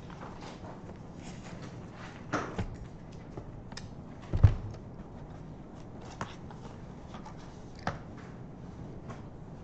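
A paper notepad being handled and set down on a desk: scattered rustles and light taps, with one louder thump about four and a half seconds in.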